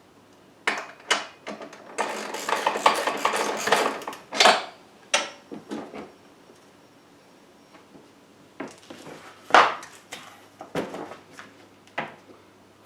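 Rear bagger hopper top being handled and fitted into place: irregular knocks and clatter of its frame, with a busy stretch of rustling and rattling a couple of seconds in and a few sharper hits later on.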